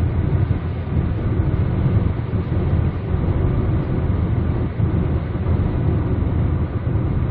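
Car driving at road speed, heard from inside the cabin: a steady low rumble of engine and tyres on the road.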